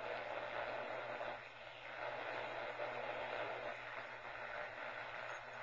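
Homebrew 80 m AM receiver hissing with static and band noise through its speaker, over a steady low hum.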